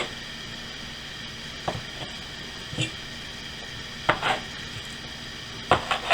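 Several short, sharp knocks of a cutting tool coming down on a board as bread dough is cut into four pieces, irregularly spaced, with a pair close together about two-thirds through and another cluster near the end.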